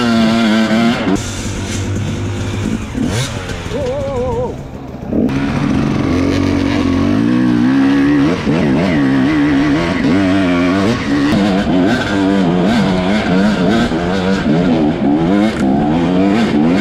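Dirt bike engine revving as it is ridden off-road, its pitch rising and falling over and over as the throttle is opened and closed. It eases off briefly about four seconds in.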